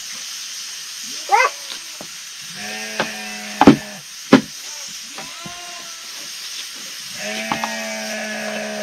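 Sheep bleating in long, steady-pitched calls, once a few seconds in and again near the end, with a short rising cry about a second in. Two sharp knocks a little past the middle are the loudest sounds, and a steady hiss runs underneath.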